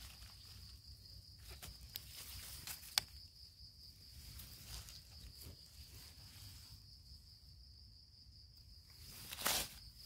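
A steady high insect drone, cricket-like, with faint rustles and small clicks of hands moving through dry leaves and grass. A louder rustle comes near the end.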